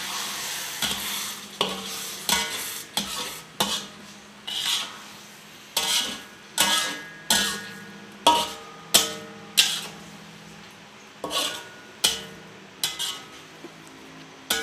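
A utensil stirring beef rendang in its coconut-milk gravy in a metal cooking pot, scraping and knocking against the pot in repeated strokes about once a second, with a brief metallic ring after some strokes and a short pause partway through.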